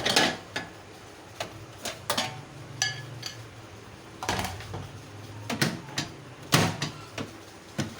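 Clicks and clunks from a microwave oven being handled during repair: about a dozen separate sharp knocks and taps, some louder clunks around the middle and near the end.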